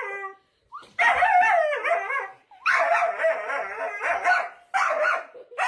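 A dog making long, wavering howl-like vocalizations: three drawn-out stretches, the first two each more than a second long.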